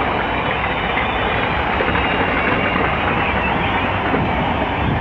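Large fireworks display going off continuously: a dense, steady rumble and crackle of many charges at once, with no single bang standing out.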